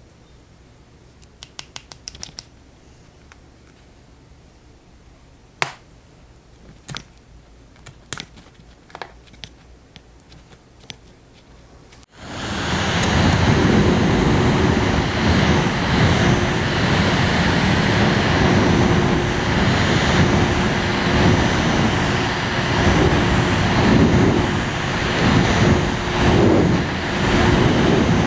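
Several sharp plastic clicks, a quick run of them and then a few single ones. About twelve seconds in, a portable mini air conditioner's fan switches on and runs with a loud, steady rushing noise and a faint steady hum.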